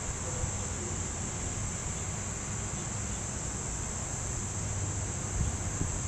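Steady, high-pitched insect chorus: a continuous shrill drone that holds unchanged throughout.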